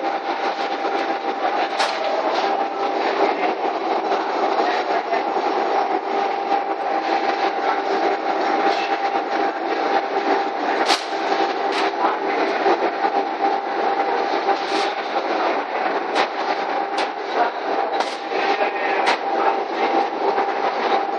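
Electric belt-conveyor bag loader running, a steady mechanical whir with a constant hum, and about ten sharp clicks scattered through it.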